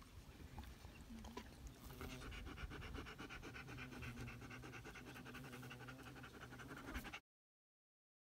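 A German Shepherd panting with her tongue out, faint, in a quick even rhythm; the sound cuts off abruptly about seven seconds in.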